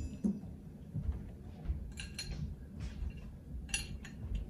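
Light metallic clinks of brass pipe fittings and hand tools being handled: two close together about two seconds in and another near the end, over a low background hum.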